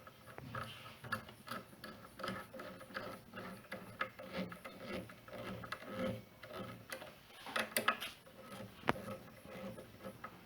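Hand work on the inverter's electrical connections: irregular rubbing, scraping and small clicks, with one sharper click about nine seconds in.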